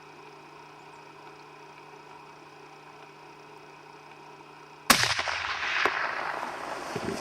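A single hunting rifle shot about five seconds in, sharp and loud after a few seconds of faint steady hum, followed by an echo that lasts a couple of seconds.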